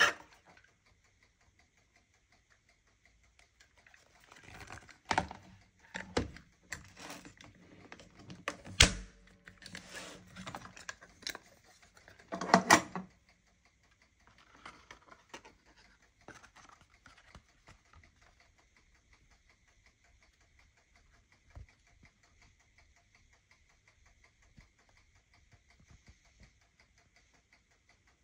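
Wooden contact-printing frame being handled: a run of sharp knocks, clicks and rattles as the glass, paper and clipped back are set in place, then only faint handling in the second half.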